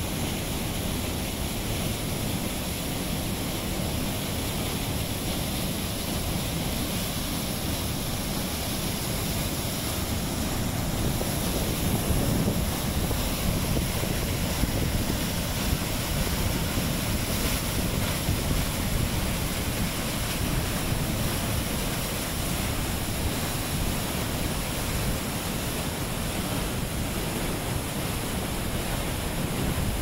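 Waterfall water rushing through a narrow rock chute and pouring over the brink of Basaseachi Falls, a steady, even rush.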